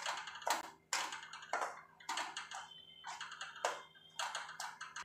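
Steel spatula scraping and stirring semolina and grated coconut around a stainless steel kadhai as they roast, in repeated short strokes about two a second.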